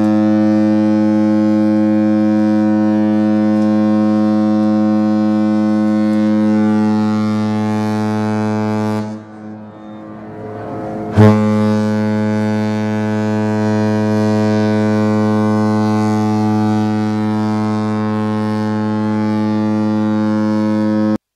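Cruise ship's horn sounding two long, deep, steady blasts, each about nine to ten seconds long, the second starting about eleven seconds in after a short break.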